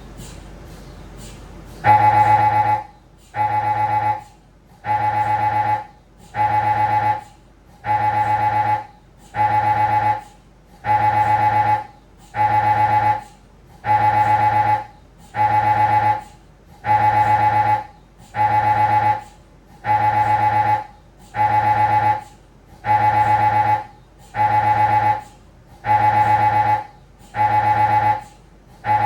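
Siemens Magnetom Avanto Fit MRI scanner's gradient coils sounding during a spine imaging sequence: after a low steady hum, about two seconds in, a loud buzzing tone starts and pulses on and off in a regular rhythm, each tone lasting just under a second and repeating about every second and a half.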